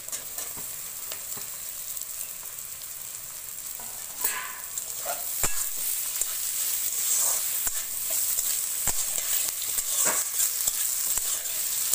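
Potato batons and onions sizzling in hot mustard oil in a metal kadai, stirred with a flat metal spatula that scrapes and clinks against the pan. The sizzle grows louder about four seconds in.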